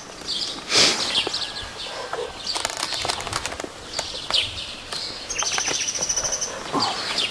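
Small birds chirping, with a buzzy high trill about five seconds in, and a quick run of sharp clicks and rustles around the middle.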